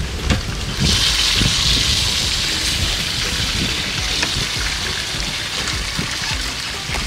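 Chef's knife chopping a pepper on a wooden cutting board, a few faint taps. A hiss comes in about a second in and slowly fades, louder than the taps.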